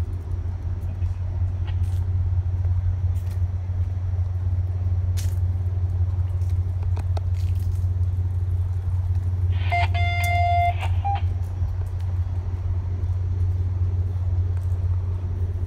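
Diesel passenger-train locomotive idling with a steady low rumble, with scattered light clanks. About ten seconds in there is a brief high tone lasting about a second.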